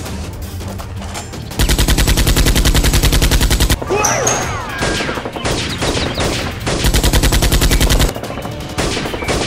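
Rapid automatic gunfire in two long bursts of about a dozen shots a second: the first starts a second and a half in and lasts about two seconds, and a shorter one comes near the end. Scattered, quieter shots fall between the bursts.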